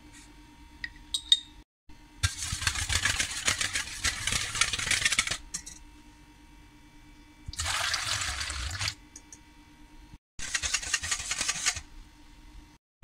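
Egg and water being whisked in a stainless steel bowl: rapid scraping and clinking in three bursts of a few seconds each, with a pour of water into the bowl between them.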